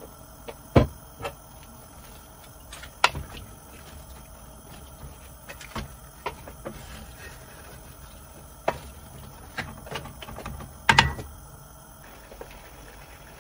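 Scattered knocks and clanks of a wooden spoon and a lid against a metal cooking pot. The sharpest knocks come about a second in and near the end.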